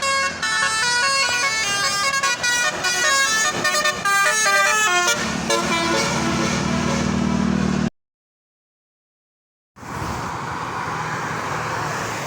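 Telolet Basuri multi-tone bus horn playing a quick melody of rapidly changing notes for about five seconds, then a lower steady tone held for about three seconds. The sound cuts out completely for about two seconds, then a steady rushing traffic noise follows.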